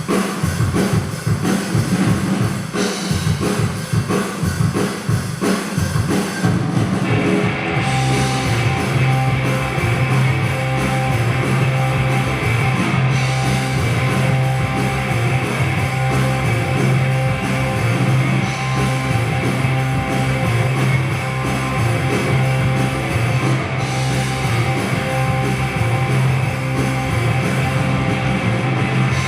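Loud rock music with electric guitar and drum kit; the arrangement changes about seven seconds in to a steady held bass and sustained guitar.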